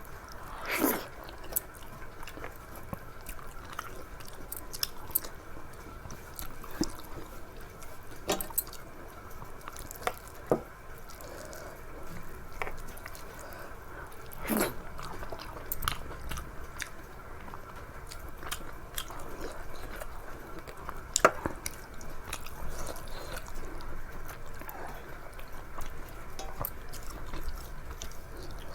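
A person eating close to the microphone: chewing and mouth smacks, with many short, sharp clicks scattered through and a few louder ones.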